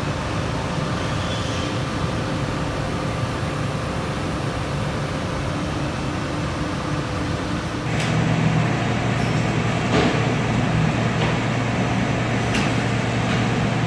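CNC router machinery running with a steady mechanical drone that steps up louder about eight seconds in, with a few sharp clicks after that.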